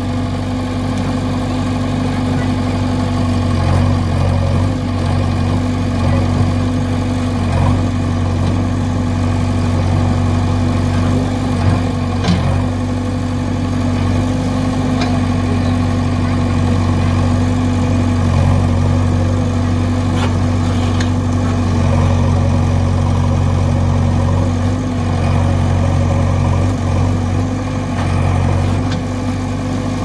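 JCB 3DX Xtra backhoe loader's four-cylinder diesel engine running steadily, its level swelling and easing a little now and then, with a few faint clicks.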